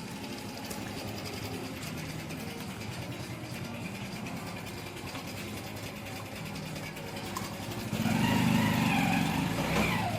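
Background music, then a motor vehicle's engine rising loudly for about two seconds near the end and falling away in pitch as it passes.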